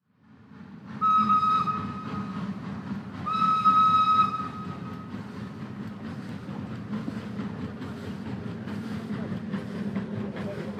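Steam train running, with two whistle blasts at the same pitch, the first about a second in and the second about three seconds in, over a steady rumble that carries on after them.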